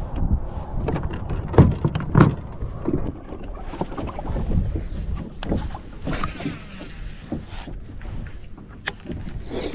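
Irregular knocks and bumps of movement and gear in a small kayak, with a few sharp clicks among them.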